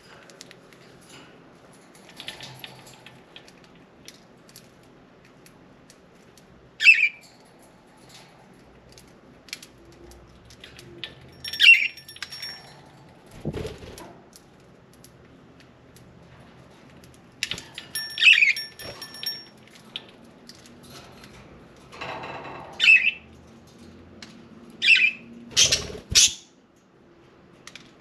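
Pet budgerigars giving short, sharp chirp calls every few seconds, coming thicker near the end, with a soft flutter or bump twice.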